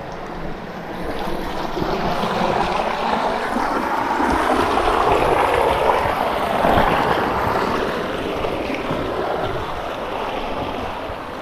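Creek water rushing, a steady noisy wash that swells to its loudest around the middle and then eases off.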